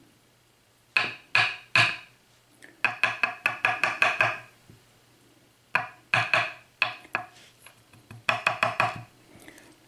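Small metal lock pins from a Schlage mortise cylinder clinking as they are handled, in four quick bunches of sharp metallic clinks with a short ring, the second bunch the longest and fastest.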